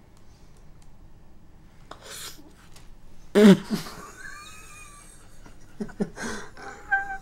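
A small dog, an Italian greyhound, whining in thin, high, wavering cries, as if begging for more food. There is a short, louder sound about halfway in.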